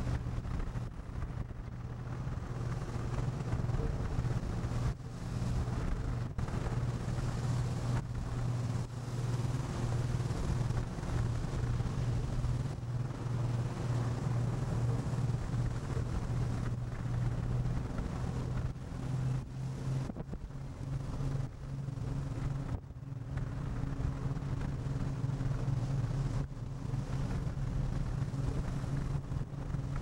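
Steady low hum of a fishing boat's diesel engine, with wind buffeting the microphone and sea noise over it. The engine note rises slightly about two-thirds of the way through.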